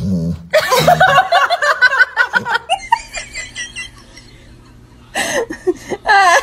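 People laughing: a stretch of laughter at the start, a quieter gap after the picture changes, then more laughter near the end.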